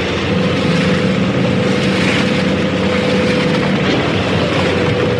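Harvester running steadily: an engine hum under a held high whine and the broad rattle-and-rush of working machinery.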